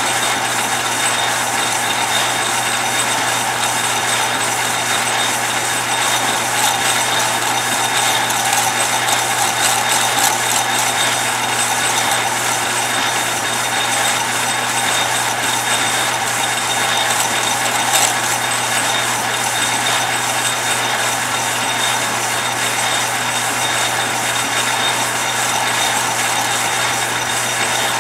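Old metal lathe running steadily, its chuck spinning as a tool is fed by hand into the turning workpiece; a constant hum with a faint high whine.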